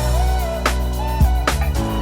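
Background music: an upbeat track with a steady drum beat, a deep bass and a melody that glides up and down.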